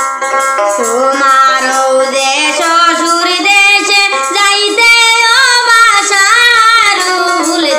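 A woman singing a Sylheti wedding song (biyar gaan) in a high voice with a sliding, ornamented melody over instrumental accompaniment. The voice comes in about a second in.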